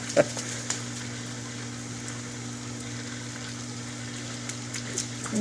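Rain falling, a steady even hiss with a few light ticks of drops near the start.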